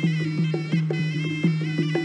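Traditional Khmer boxing music: a sralai, the Khmer oboe, plays a sustained melody over a hand drum struck about three times a second, each stroke dropping in pitch.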